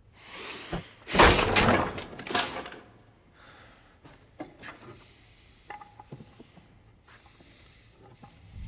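A loud crash of shattering glass about a second in, lasting a couple of seconds, followed by a few light knocks and clinks.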